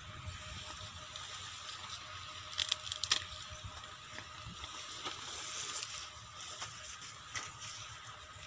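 Dry maize plants rustling and crackling as ears of corn are snapped off by hand, with a cluster of sharp snaps about three seconds in, over a steady low rumble.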